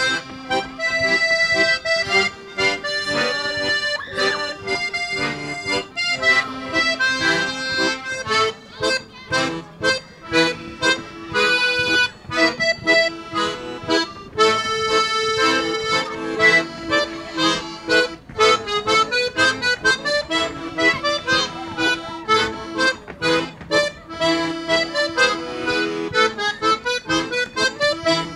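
An ensemble of several accordions playing a lively, festive piece together, with held chords under a quick, steady rhythmic pulse.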